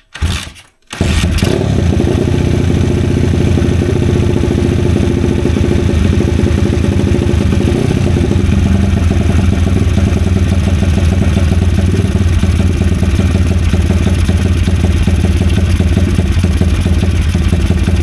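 Kayo pitbike's single-cylinder four-stroke engine started, catching about a second in and then running steadily at a raised idle. It won't hold a low idle, which the owner puts down to a wrong mixture setting on the newly fitted carburettor.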